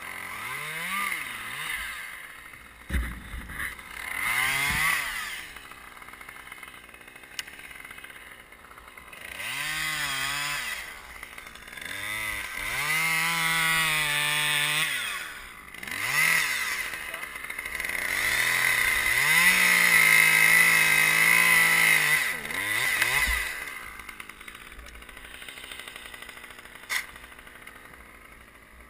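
Chainsaw revved in repeated bursts, each rising to full speed and falling back to idle, as it cuts into a tree trunk; the longest bursts hold at full speed for about three seconds. A sharp knock sounds about three seconds in.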